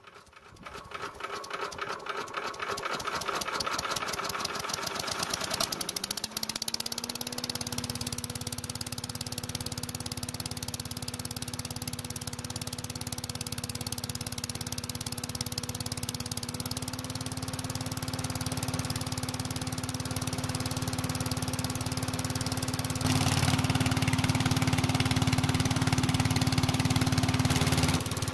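Predator 301cc single-cylinder engine on a walk-behind leaf blower, just pull-started cold on full choke, running; it picks up speed and settles to a steady pitch about six seconds in. It gets louder about 23 seconds in and drops back just before the end.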